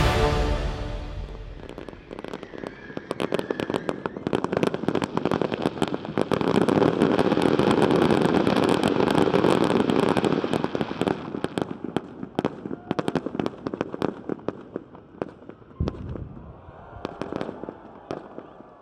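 Fireworks display: rapid crackling and popping of bursting shells, building to a dense barrage and then thinning out, with a deep boom near the end as fireballs go up.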